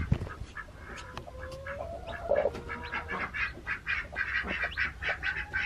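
A newly hatched chick peeping under a broody hen, in short, high, repeated calls several times a second, most steadily through the second half. About two seconds in there is a lower drawn-out call, and a handling thump at the very start.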